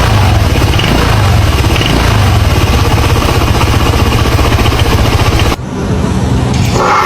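A vehicle's engine and CVT running with a loud, dense mechanical noise that pulses rapidly, heaviest in the low range; it is presented as an abnormal noise from the CVT, a warning sign of transmission trouble. The sound dips briefly about five and a half seconds in, then carries on.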